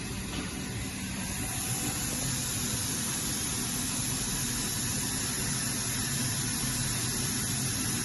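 Spindle of a Hurco VMX42U vertical machining center running during a spindle speed test: a steady hiss over a low hum, getting a little louder about a second and a half in.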